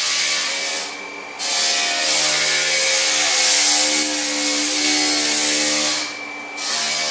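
Drum floor sander running and sanding bare wooden floorboards: a steady motor hum under a loud grinding hiss. The hiss drops away briefly twice, about a second in and again near the end, while the motor keeps running.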